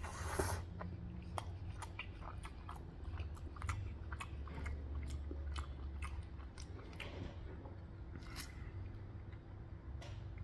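A man chewing a mouthful of food, with many short irregular clicks from the mouth while eating. A steady low hum runs underneath.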